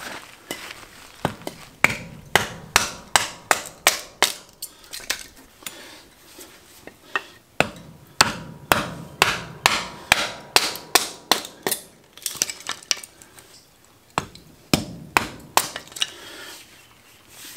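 Small wood splits being chopped into kindling: runs of sharp strikes, two or three a second, with short pauses between the runs.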